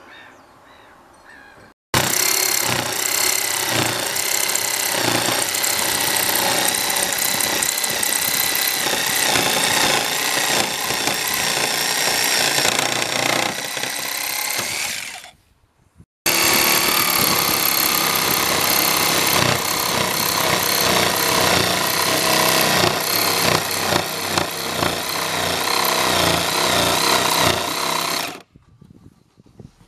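Cordless jigsaw cutting through a plywood sheet, running loud and steady. It starts about two seconds in, stops briefly about halfway, then cuts again until just before the end.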